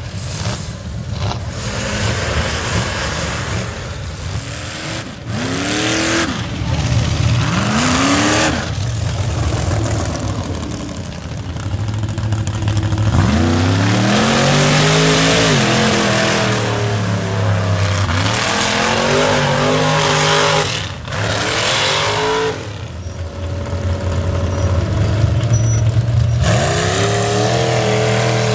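Lifted mud-bog trucks revving hard as they plough through a mud pit, one pass after another. Engine notes rise and fall with the throttle over a dense rush of churning tyres and flying mud.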